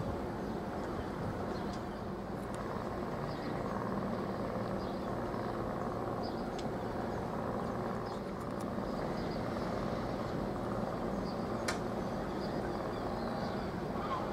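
Steady low drone of a passing container ship's engine carried across the water, with a few faint high chirps and one sharp click about twelve seconds in.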